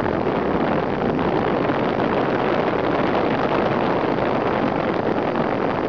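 Steady rush of wind on the microphone from the airflow of a paraglider in flight.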